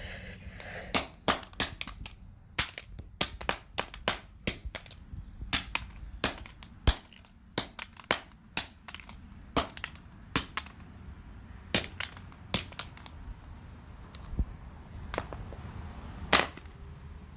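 Hammer repeatedly striking a flip phone, a series of sharp irregular blows about one to two a second, with a short lull near the end.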